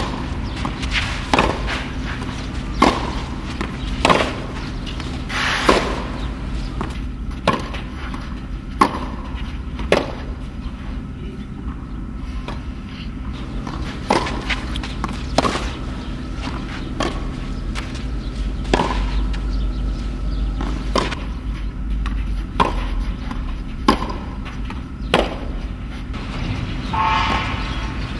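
Tennis ball rally on a clay court: sharp pops of the ball off the racket strings and its bounces, about one every second or so, over a steady low hum.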